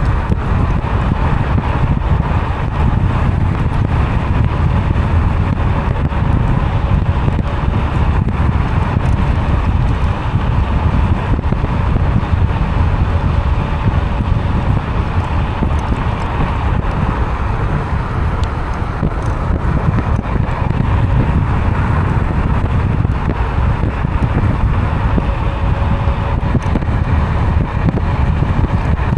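Wind buffeting the action camera's microphone during a steady ride on a Kukirin G4 electric scooter, mixed with road and tyre noise. A faint steady whine comes and goes at times.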